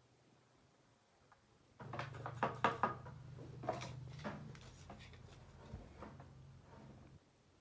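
A run of sharp clicks and knocks, densest early on and thinning out, over a low steady hum that starts and stops abruptly.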